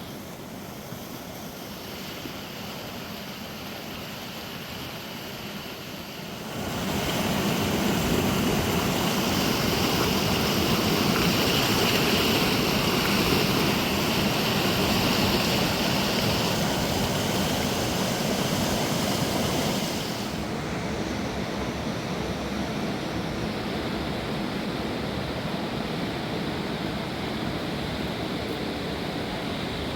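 Rushing mountain river: a steady roar of water that gets louder and brighter about a fifth of the way in, then drops back down about two-thirds of the way through.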